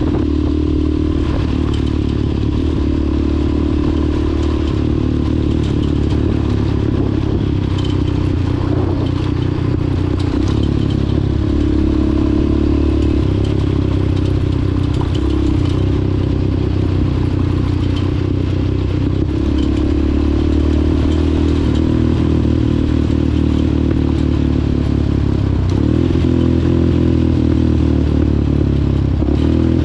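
A vehicle's engine running steadily under load, its pitch shifting a few times, with constant clattering and rattling from driving over a rough, bumpy road.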